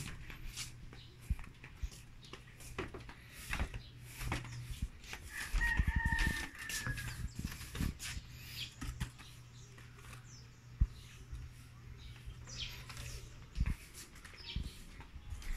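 Scattered knocks and steps on wooden deck boards, with a rooster crowing once, a single held call about five seconds in.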